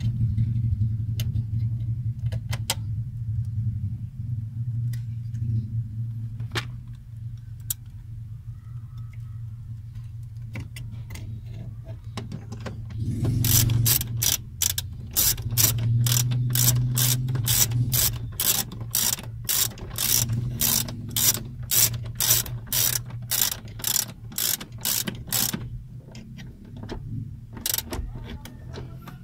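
A ratcheting screwdriver clicking in quick, even strokes for about twelve seconds from roughly halfway through, as it drives in the screw that holds the tachometer's ground wire. Scattered small clicks of handling come before it, over a low hum.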